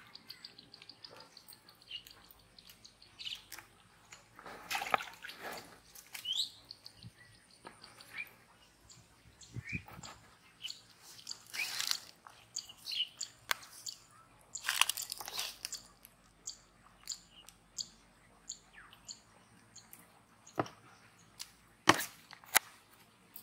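Irregular rustles, brushes and brief knocks of hands working among leafy plants beside a plastic bucket, with a faint high bird trill in the first two seconds and chirps now and then.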